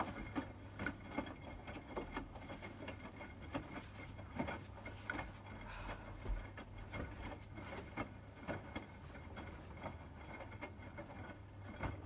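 Hotpoint WMFUG 942 front-loading washing machine tumbling a wet load of bedding and towels in soapy water during the heating stage of its 60° wash: irregular splashes and sloshes over a steady low hum.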